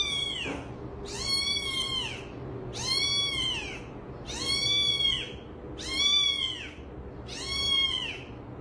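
Domestic cat meowing over and over in a steady series of high-pitched calls, about one a second, each rising then falling in pitch.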